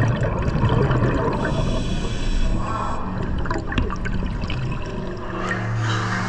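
Water rushing and sloshing around the camera as it rises and breaks the surface, with crackling splashes. About five seconds in, a steady low hum comes in.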